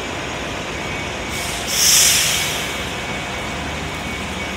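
A bus's air brakes let out one sharp hiss about two seconds in, fading over about a second. Under it runs a steady wash of rain and wet-road traffic noise.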